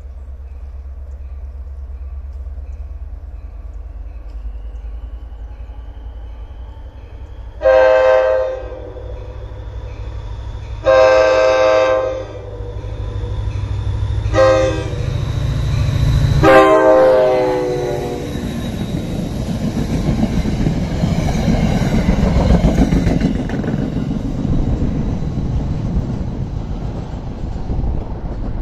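NJ Transit EMD GP40PH-2B diesel locomotive approaching with its engine rising, then sounding its horn in the grade-crossing pattern of two long blasts, a short one and a final long one that falls in pitch as it passes. The rumble and clatter of the locomotive and its Comet passenger cars going by follows and slowly fades.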